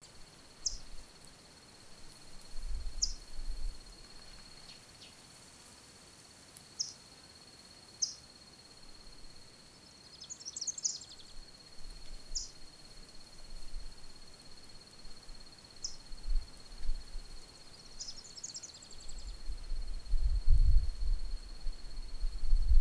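Rural outdoor ambience: a steady high-pitched insect drone, short bird chirps every few seconds, and two brief chattering bird calls. Low wind rumble on the microphone comes in gusts and grows stronger near the end.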